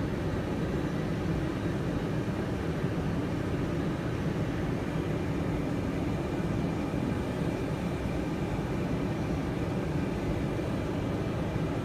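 VW Amarok idling: a steady, even low hum with no changes.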